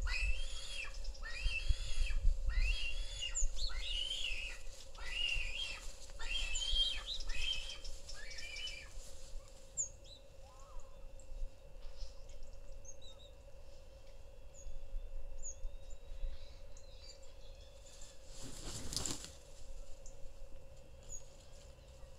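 Male lappet-faced vulture calling while mating: a run of about ten high-pitched calls, a little more than one a second, ending about eight seconds in. After that there are only faint chirps of small birds and, near the end, a brief whoosh of noise.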